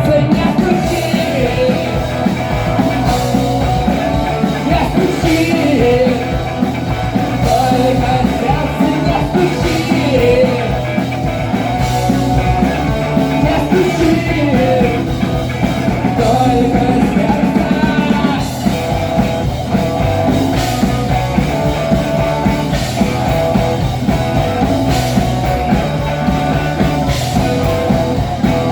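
Rock band playing an instrumental stretch of a song: drums keeping a steady beat under bass and guitars, with a wavering melodic lead line.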